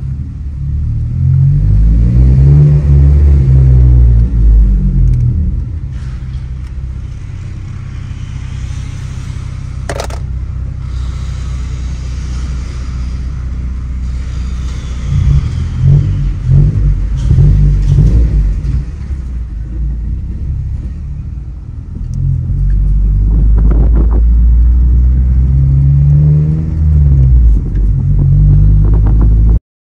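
Ninth-generation Honda Civic Si's 2.4-litre four-cylinder, fitted with an aftermarket downpipe and exhaust, heard from inside the cabin while driving. The engine pulls up through the revs three times with rising pitch, with quieter steady running between. The sound cuts off abruptly near the end.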